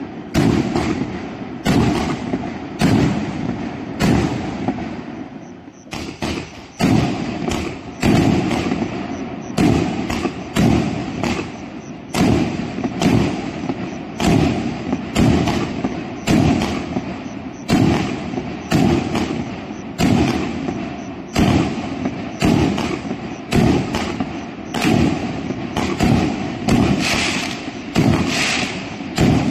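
Magic Rabbit 2-inch 66-shot firework cake firing in a steady run of launch thumps and aerial bursts, about one a second, many of them in quick pairs. There is a brief lull about five seconds in, and the bursts turn brighter and hissier near the end.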